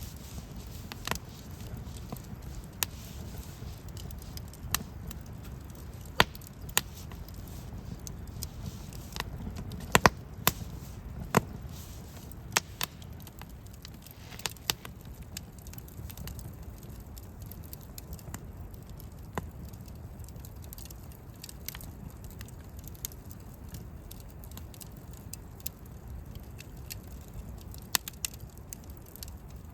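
Wood campfire crackling: irregular sharp pops and snaps of differing loudness over a low, steady rumble.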